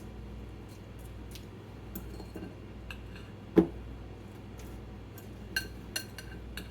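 A utensil clinking and knocking against a salad bowl as lettuce is tossed with ranch dressing to coat it. The sounds are scattered clicks, with one much louder knock about halfway through and a quick run of clinks near the end, over a steady low hum.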